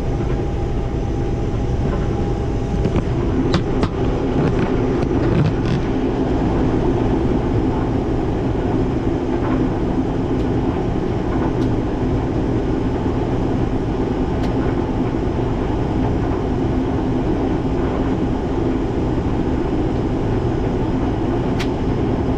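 Combine harvester running steadily while harvesting corn: a constant machine drone with a few light clicks and rattles about three to six seconds in.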